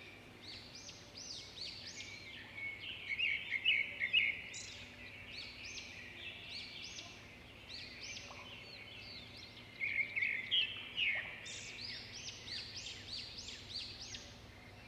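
Birds chirping and calling: a dense, continuous run of short high notes, loudest around four seconds in and again around ten to eleven seconds in.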